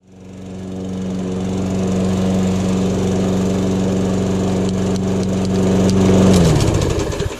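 Briggs & Stratton single-cylinder engine of a Craftsman EZ Walk self-propelled lawn mower running steadily while mowing, fading in at the start. A little past six seconds in its pitch drops and the engine winds down to a stop.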